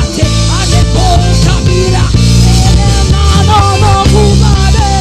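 Live worship band playing a slow, steady groove: sustained low notes that change about every second, under a lead melody that slides and bends between notes.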